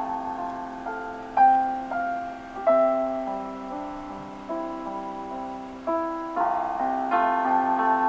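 Background keyboard music: slow chords, each struck and left to fade before the next.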